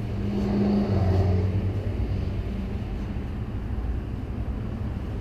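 A steady low mechanical hum, like an engine or motor running, that swells for a moment about a second in and then settles.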